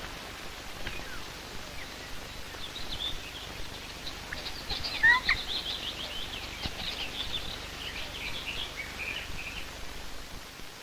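Birds chirping and calling in many short, high notes, busiest in the middle, with one louder call about five seconds in, over a steady hiss.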